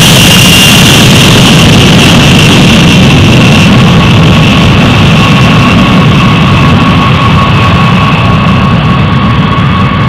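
Eight Pratt & Whitney TF33 turbofans of a B-52H Stratofortress at takeoff power as the bomber climbs away: loud jet engine noise with a deep low rumble and a high whine that slides slowly down in pitch. The highest sounds fade over the last few seconds as it moves off.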